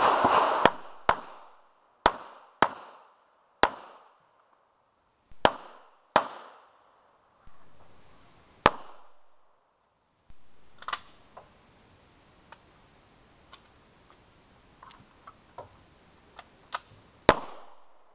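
A string of pistol shots during an action-pistol stage. The first shots come in a quick burst, then single shots at uneven gaps of one to three seconds, each with a short echo. After a pause of several seconds with only faint ticks, one last loud shot comes near the end.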